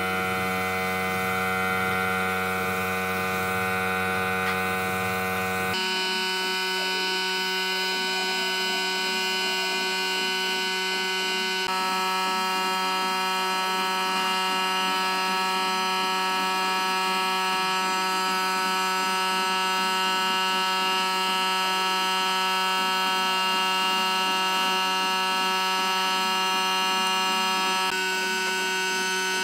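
Background music of sustained electronic chords that changes abruptly about six seconds in, again near twelve seconds, and near the end.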